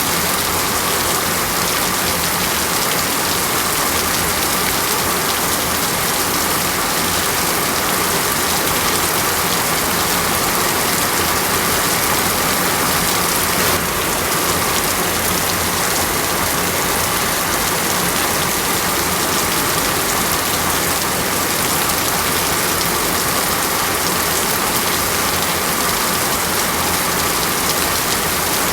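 Steady heavy rain falling on foliage in a tropical rainforest, a dense, even hiss of countless drops.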